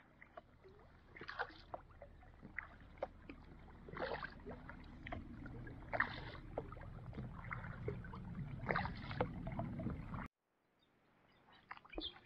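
Kayak paddles dipping and pulling through the water from an inflatable tandem kayak (Decathlon Itiwit Strenfit X500): a splash and drips every second or two over a low rumble. The sound cuts out suddenly about ten seconds in.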